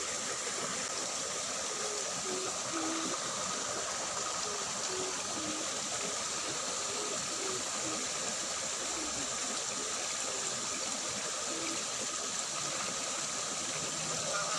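Water running steadily in a small ditch, a constant trickling rush.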